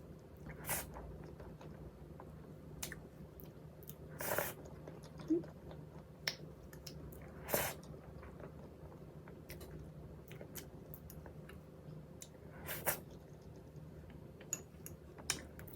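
Close-miked eating sounds: soft chewing of strawberries and whipped cream, with four sharper wet mouth smacks a few seconds apart.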